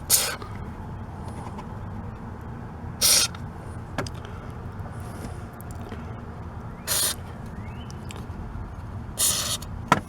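Aerosol can of white lithium grease sprayed onto a car door's bottom hinge in four short hissing bursts, a few seconds apart, with a single sharp click in between.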